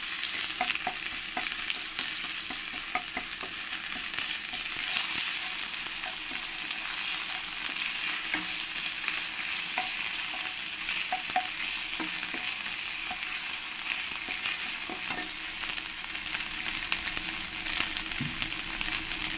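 Tempering spices sizzling in hot oil in a nonstick kadai: ginger paste, cumin, dried red chillies and bay leaves frying with a steady hiss. A spatula stirs them, scraping and ticking against the pan.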